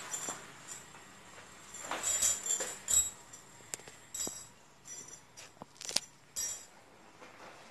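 A small child handling things: scattered short, light clinks and rustles, a dozen or so irregular ticks and brief scrapes, the loudest about two and three seconds in.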